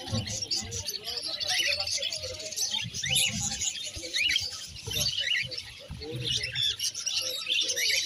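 Several caged Fischer's lovebirds chirping, a dense, continuous stream of short, high-pitched chirps from many birds at once, over a low murmur of voices.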